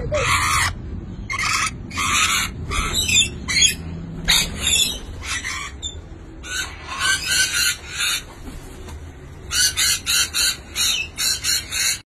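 Parrots screeching: a string of harsh squawks, each under half a second, with a quicker run of short screeches about three a second in the last two seconds.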